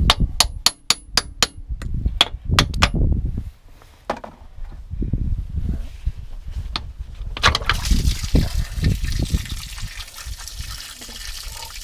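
Quick series of metallic hammer strikes on the old water pump of a BMW E36 M3, knocking it loose from the block. From about eight seconds in, coolant gushes and trickles out as the pump comes free.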